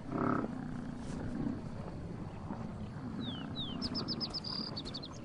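American bison herd grunting in low, rumbling calls, with a short higher call just after the start. Near the end a small bird sings a quick run of high chirps.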